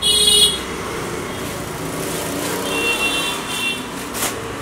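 Steady road-traffic noise with a loud, brief high-pitched sound at the very start, two shorter high tones about three seconds in, and a click just after four seconds.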